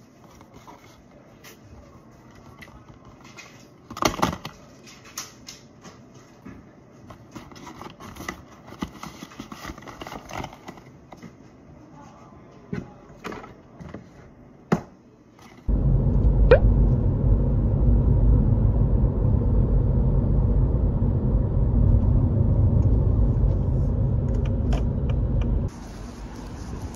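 Light taps and clicks of things being handled on a desk, then a sudden loud, steady low rumble that lasts about ten seconds and cuts off near the end.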